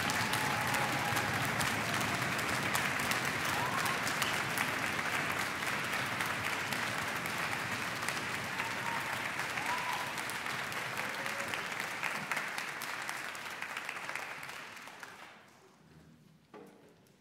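Audience applause, dense and steady, then fading away about fifteen seconds in, followed by a couple of faint soft knocks.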